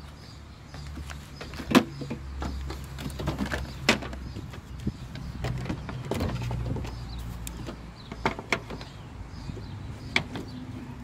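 A steady low motor hum that shifts in level about two seconds in and again around six seconds, with sharp clicks and knocks scattered through.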